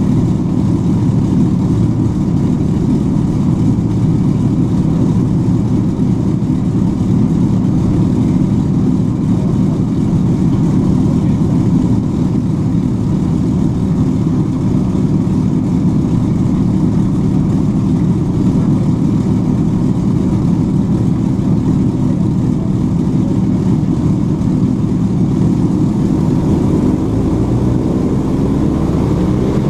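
The Avro Lancaster's Packard-built Rolls-Royce Merlin V12 piston engines running together, a loud steady drone heard from inside the fuselage. Near the end the low engine note begins to shift.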